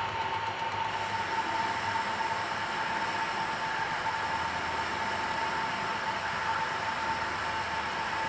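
Centre lathe running with a steady whine during taper turning, the tool fed by hand through the compound slide.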